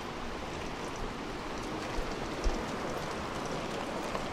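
Steady, gentle rain falling, with city traffic running underneath and two brief low thumps about two seconds in.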